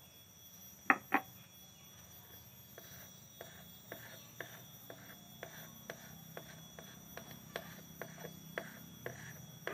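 Two sharp knocks about a second in, then a wooden stirring stick clicking lightly against the wall of a plastic cup of paint about twice a second as the paint is stirred.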